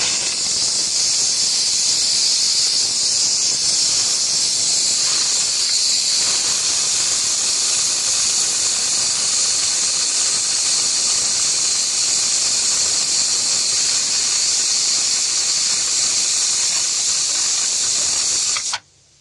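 A loud, steady hiss, like gas or steam escaping under pressure, that cuts off suddenly near the end.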